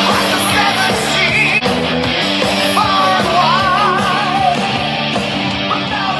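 A song with singing and guitar played at high volume through a Sony SRS-XB32 Bluetooth speaker; a wavering sung line comes in about halfway through.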